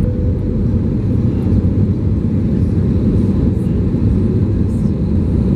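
Steady low cabin noise of an Airbus A320neo's engines and airflow, heard from a window seat over the wing while the airliner is on approach to land.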